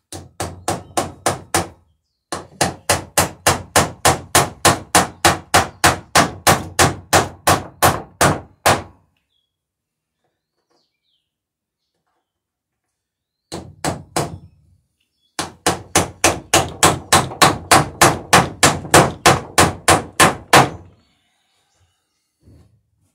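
Hammer rapidly peening rivets through wooden dory bottom boards, about three sharp blows a second in four runs: two short, two lasting about six seconds each, with pauses between.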